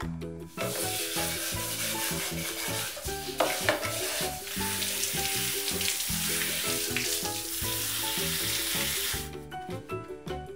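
Handheld shower head spraying water onto a cordless vacuum's filter unit as it is rinsed: a steady hiss of running water that starts about half a second in and stops shortly before the end. Background music plays underneath.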